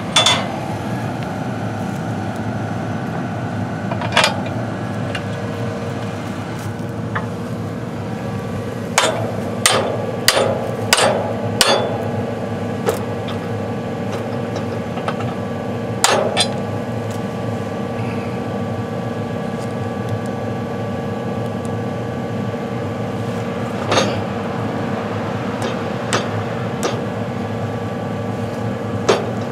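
Hammer blows on steel at the shear-bolt mount of a John Deere 915 V-Ripper subsoiler shank, driving out the broken shear bolt with an old bolt used as a punch. About a dozen sharp, irregular strikes come, several in quick succession about a third of the way in. Beneath them runs the steady idle of a diesel tractor engine.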